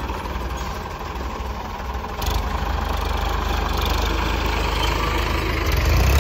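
Tractor engines running with a deep rumble, growing louder about two seconds in and louder again near the end as the tractors work to pull a loaded trolley out of wet, soft ground.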